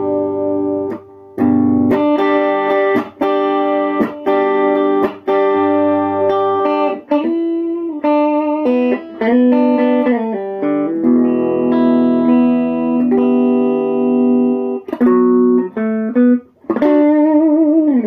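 Clean electric guitar played through a Monoprice Stage Right 5-watt tube amp with no effects: picked single-note lines and double-stops on a semi-hollow electric guitar, with string bends about nine seconds in and a wavering vibrato on a held note near the end.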